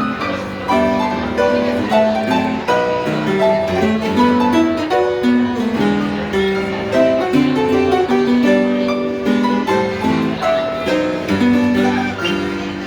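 Instrumental music: a steady run of short, plucked-sounding melodic notes.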